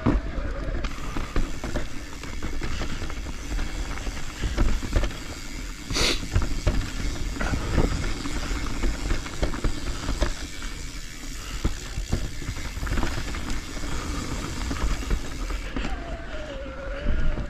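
Commencal full-suspension mountain bike riding down dirt forest singletrack: tyres rolling over dirt and roots and the bike rattling over bumps, under a heavy low rumble, with one brief sharp noise about six seconds in.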